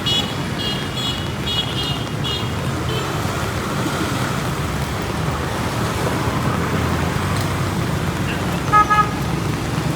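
Street traffic with engines running steadily. A high-pitched horn toots in a quick series of short beeps over the first three seconds, and a lower horn gives two short, loud honks near the end.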